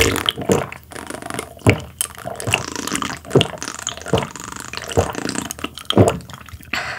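A person drinking tea from a glass mug, swallowing in gulps about once a second, close to the microphone.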